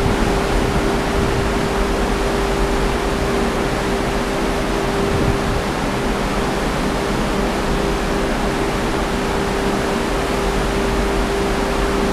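Strong wind of about 50 knots rushing across a ship's balcony and the microphone, mixed with the sea below, as a loud steady noise. A steady hum-like tone runs underneath throughout.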